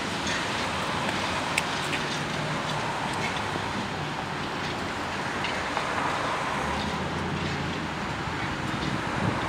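Valley Railroad steam locomotive 3025 and its train rolling away into the distance: a steady low rumble with a few faint clicks from the wheels.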